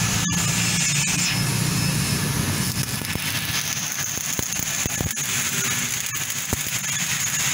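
Stick-welding arc crackling and hissing, with scattered sharp pops of spatter. A steady low hum runs under it for the first three seconds or so, then fades.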